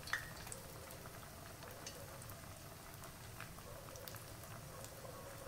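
Tapioca cubes deep-frying in hot oil in a cast-iron skillet: a faint, steady sizzle with scattered small pops and crackles, one sharper pop just after the start.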